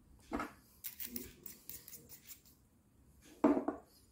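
Light metallic clicking and a fast run of fine ticks as a metal washer is handled and fitted onto the threaded metal valve stem of a TPMS tyre pressure sensor. About three and a half seconds in comes a louder knock as the sensor is set down on the desk.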